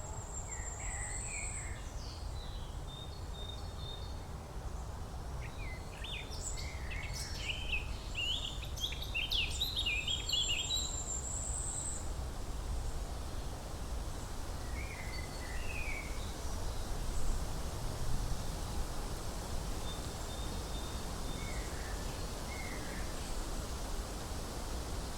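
Wild birds singing and calling: a thin, high whistled note near the start, a busy run of song in the middle, then scattered short two-note chirps, over a steady low background rumble.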